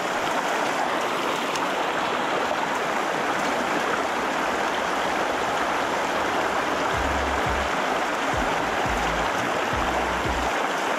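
Small mountain creek rushing over rocks in a shallow riffle: a steady, even rush of water.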